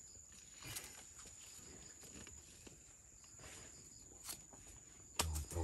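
Faint scattered clicks and light footsteps over a steady high insect whine, with a low thump near the end.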